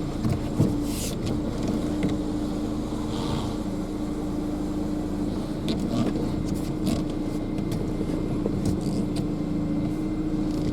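Car engine running with a steady low hum and rumble, heard from inside the cabin, with scattered light clicks and knocks.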